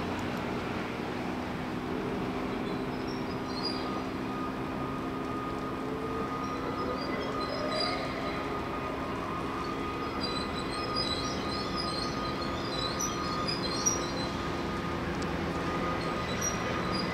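Taipei Metro electric train pulling slowly out of the depot: a steady traction motor hum, with a whine that rises in pitch about six seconds in as the train picks up speed. Short high-pitched wheel squeaks come in about three seconds in and again from about ten seconds.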